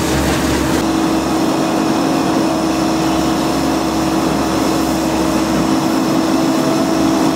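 An engine running steadily at idle, with a constant hum.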